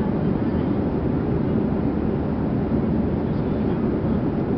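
Steady low rumble of an airliner cabin in flight, the engine and airflow noise heard from inside the aircraft, with faint passenger voices underneath.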